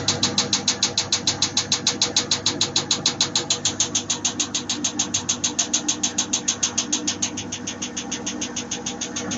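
WF 10724 washing machine clattering during its spin cycle: a fast, even clicking of about six or seven knocks a second over the drum's running hum, a little weaker after about seven seconds. It is a fault whose cause a service technician could not find.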